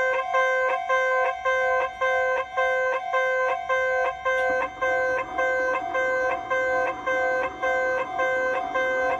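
Kintetsu in-station level crossing alarm ringing, striking about twice a second, each stroke a bright chord of two main tones. About halfway through, a steady rushing noise joins underneath.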